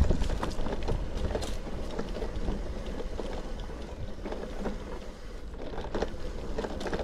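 Bicycle coasting downhill on a concrete road: the freewheel hub ticks irregularly over a steady low rumble of tyres and wind on the microphone.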